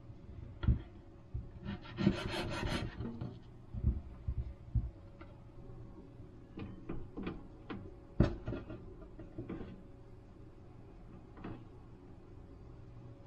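Kitchen knife cutting pork belly on a wooden cutting board: knocks of the blade on the board and a scraping rasp about two seconds in. After that come softer taps and handling noises, with a sharp click near the middle.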